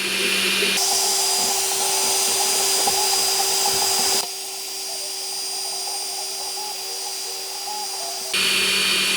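3D printer running mid-print: a steady mechanical whir of fans and stepper motors with a fluttering hum. The sound drops abruptly about four seconds in and jumps back up near the end.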